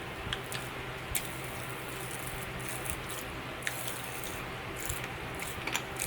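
Popping candy crackling in a mouth: only a few scattered small pops over a steady low hum, the candy not very poppy.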